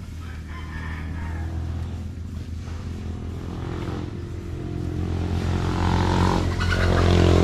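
A vehicle engine running with a steady low hum, growing steadily louder from about three seconds in.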